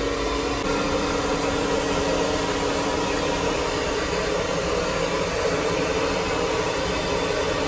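Steady hiss and hum inside the passenger carriage of a Haramain high-speed train (Talgo 350), an even cabin noise of ventilation and running gear with no distinct events.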